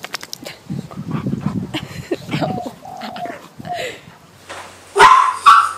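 A dog whining, with a few short high whimpers that fall in pitch, then two loud barks about five seconds in.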